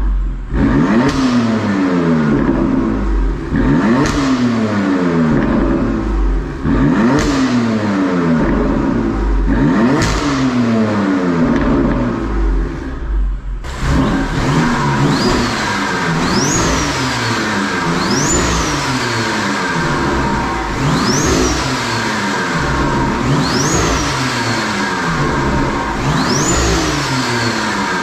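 BMW M4's twin-turbo straight-six, fitted with hybrid turbochargers, revving up and dropping back over and over, roughly every three seconds. From about halfway, a high whistle rises and falls with each rev.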